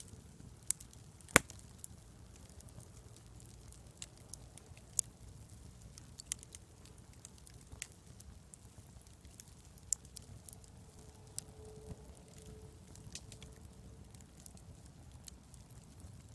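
Dying campfire crackling, with irregular sharp pops from the burning wood, one louder pop about a second and a half in, over a low steady background rumble.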